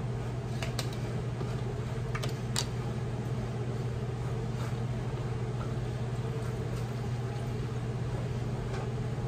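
Steady low background hum, with a few light clicks in the first few seconds.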